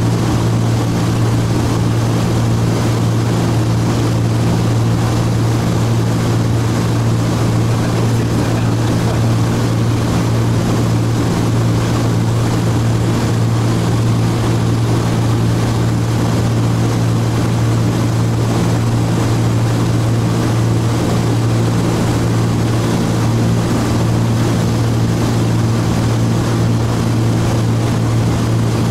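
Cessna T303 Crusader's two turbocharged six-cylinder piston engines and propellers running steadily in flight, heard inside the cockpit as a constant loud drone with one strong low hum and fainter tones above it.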